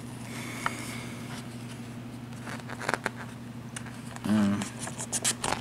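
Paper handling of a printed rule book: a few faint crackles and clicks, with a page turned about five seconds in, over a steady low hum. A short hum of voice comes about four seconds in.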